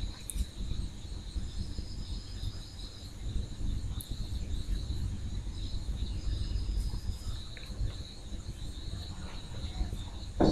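Quiet background with a steady high-pitched whine and a fainter high trill that comes and goes twice, over a low rumble.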